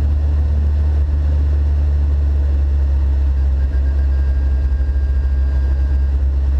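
McLaren 650S twin-turbo V8 idling steadily, a deep even drone heard from inside the cabin, with a faint steady high whine joining about three and a half seconds in.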